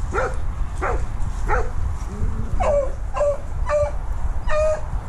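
A dog yelping and whining in distress: three short yips falling in pitch, then from about halfway four longer whining yelps, each held on one pitch, coming about every half-second over a steady low rumble. These are the calls of an anxious dog that escapes when separated from its people.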